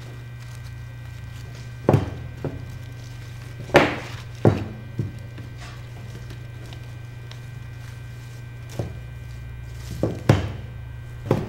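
Short, sharp knocks and snips of pruning shears, evergreen branches and wire being handled on a table as a wreath is bound, a cluster of them after about two seconds and another near the end, over a steady low hum.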